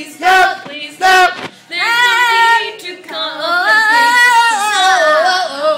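A woman singing unaccompanied: two short notes, then two long held notes with vibrato.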